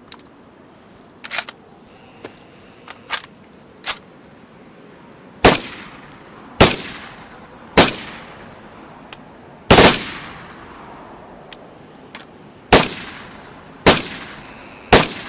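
MP5K submachine gun: a few lighter sharp clicks, then seven loud single shots spaced about one to two seconds apart, each trailing off in an echo; the shot near ten seconds is slightly longer, like a quick double.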